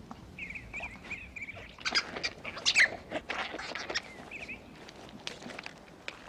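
River otter pups wrestling in grass and leaves: rustling and scuffling, with short high chirping calls that repeat throughout and a sharp high squeal a little under three seconds in.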